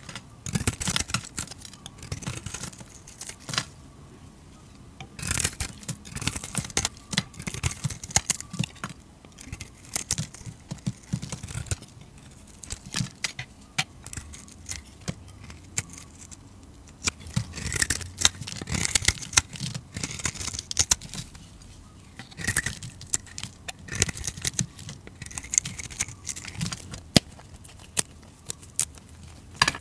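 A flat metal blade shaving curls off a hard bar of soap in repeated crisp scraping strokes, with small crackles as the shavings break away. Near the end, fingers crumble a handful of soap shavings.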